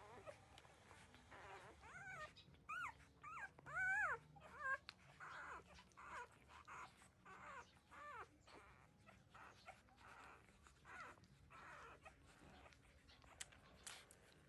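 Thirteen-day-old puppies whimpering while nursing: a run of about six short, high, rising-and-falling cries about two to four seconds in, then softer snuffling noises and small clicks.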